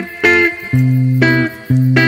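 Background music: a guitar playing a melody of separate held notes, changing about every half second, with a lower pair of notes in the middle.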